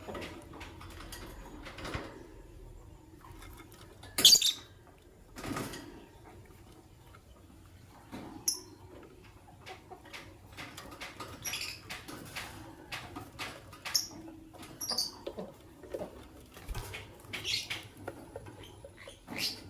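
Fischer's lovebirds giving short, sharp chirps at irregular intervals, the loudest about four seconds in, with small clicks and scratches between the calls.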